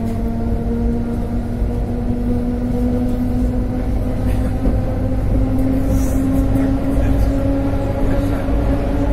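ER9M electric train running, a steady low rumble under a traction-motor whine that slowly rises in pitch as the train gathers speed. A brief click comes about six seconds in.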